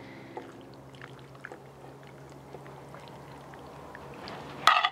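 Raw beef liver steaks slid with a fork from a clay plate into a clay cazuela of milk: soft wet slaps and light fork scrapes, with a short, louder clatter near the end.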